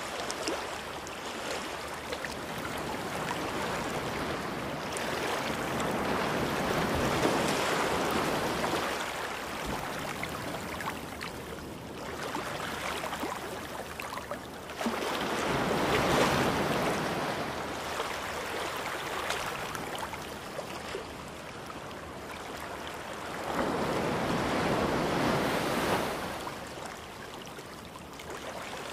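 Ocean surf: waves washing in and drawing back, in slow swells, with three louder ones.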